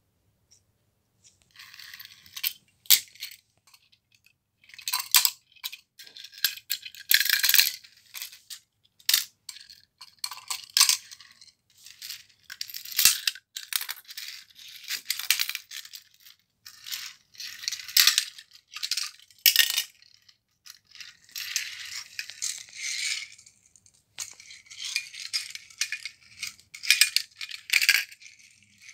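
Small die-cast metal toy cars clattering and clicking against one another and scraping across a hard floor as a hand shoves and knocks them over, in irregular bursts of sharp clicks and longer rattling scrapes.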